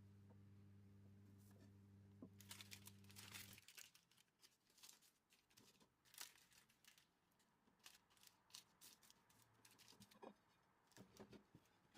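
Faint handling noises: scattered scraping and crinkling clicks. A low steady hum cuts off about three and a half seconds in.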